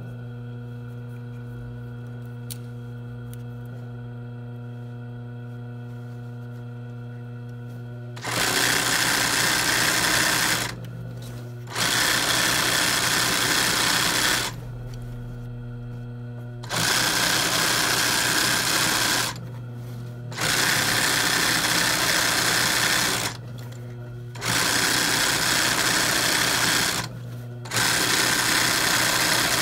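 ROYAL industrial sewing machine doing free-motion embroidery on cotton cloth held in a hoop. It hums steadily for about eight seconds, then stitches fast in six runs of two to three seconds each, with short pauses between them.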